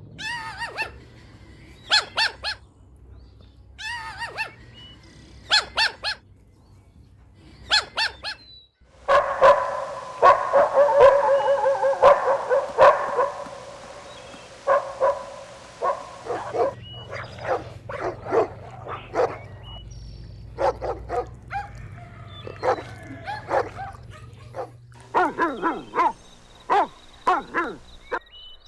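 Dogs barking and yipping in quick, high-pitched bursts, with a denser, louder run of barks in the middle.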